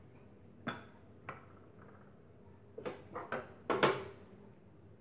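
Plates and bowls knocking and clinking as they are handled: two single clinks, then a quick run of knocks about three to four seconds in, the last the loudest.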